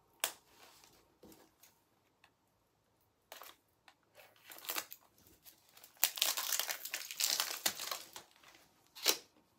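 Plastic packaging crinkling as it is handled. Short scattered rustles first, then dense crinkling from about six to eight and a half seconds in, with a sharp click just after the start and another near the end.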